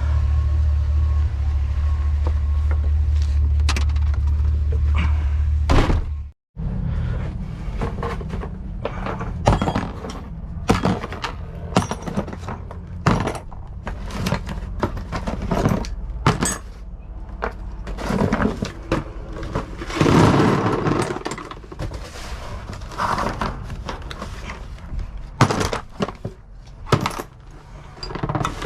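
A vehicle engine idling with a steady low rumble for the first few seconds, then, after a break, a long run of irregular metallic clanks, knocks and clatters as hard objects are handled and tossed around in a scrap dumpster.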